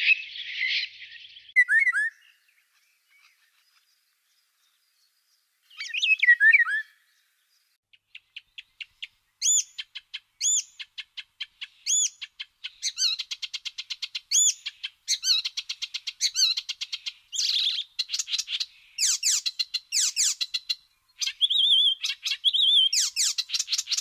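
Songbirds chirping and trilling: short slurred whistled notes, then fast rattling trills that grow denser toward the end. There is a pause of a few seconds near the start.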